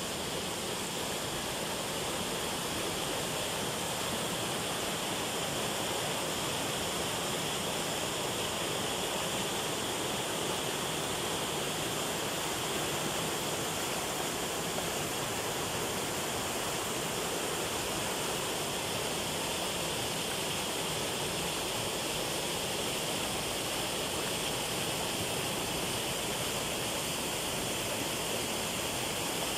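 Water pouring over a low concrete weir into churning white water below: a steady, unbroken rush.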